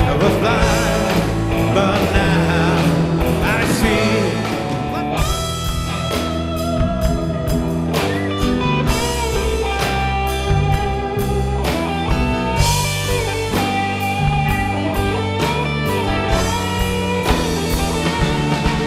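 Rock music: electric guitar over bass and drums, with a singing voice in the first few seconds.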